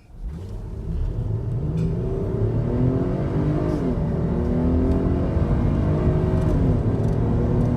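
A Jeep Grand Cherokee's 3.6-litre V6 on its stock intake, accelerating hard from a standstill to 60 mph in sport mode. The engine note rises in pitch, drops at each upshift and climbs again several times.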